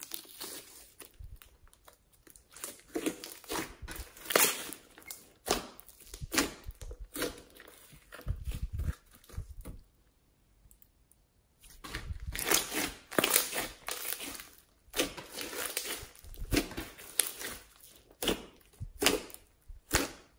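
Hands squeezing, stretching and poking pink glitter slime mixed with small beads: slime squishing in quick, irregular bursts of short crackles, with a pause of about two seconds near the middle.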